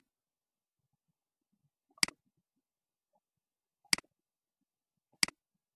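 Computer mouse clicking, four single sharp clicks about one to two seconds apart, advancing a slideshow's text animations.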